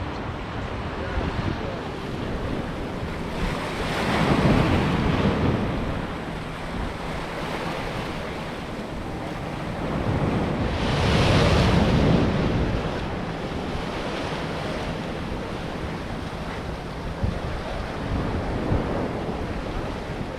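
Sea waves washing onto the shore, with two louder surges, about four seconds in and again about eleven seconds in, over a steady wash and wind on the microphone.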